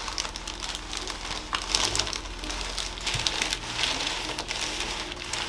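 Irregular rustling and crinkling with many small scattered clicks: handling sounds of a patient being moved about on a chiropractic table.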